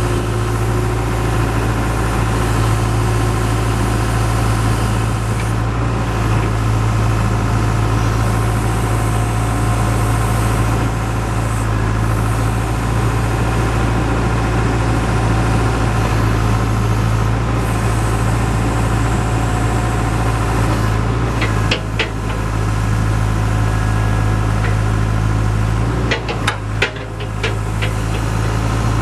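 John Deere 310E backhoe loader's diesel engine running steadily at idle, with a few sharp clanks in the last third.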